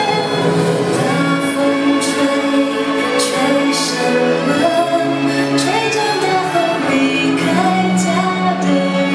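Music with singing: a melody sung over held instrumental notes, playing steadily.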